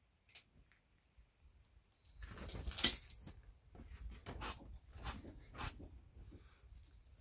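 Scattered light clicks and knocks of hands handling the car's towbar and the camera, the loudest about three seconds in. A short high bird chirp sounds about a second in.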